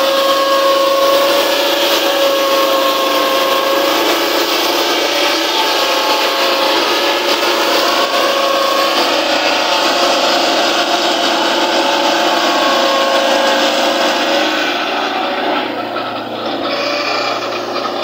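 Peterson WPF swing-blade circular sawmill cutting a log under engine power: a steady engine drone under the hiss and rasp of the blade ripping through the wood. The cutting sound eases off near the end.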